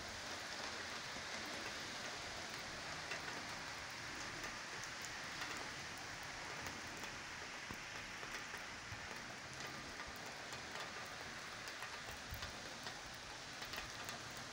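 Heavy rain falling on wet paving and puddles: a steady hiss with scattered small drop taps.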